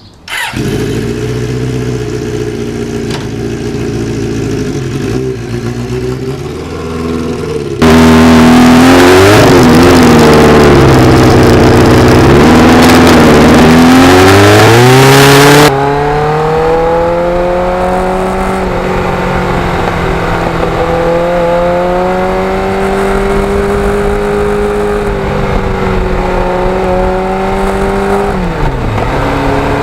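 Kawasaki GPX750R motorcycle's inline-four engine catching about half a second in and idling. About eight seconds in it turns much louder for some eight seconds, the revs rising and falling. Then it runs on at a steady pace, the revs climbing and holding, with a brief drop near the end, like a gear change.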